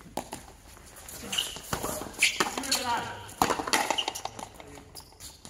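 Frontenis rally: the hard ball cracks off rackets and the front wall in sharp knocks about a second apart, with players' voices in between.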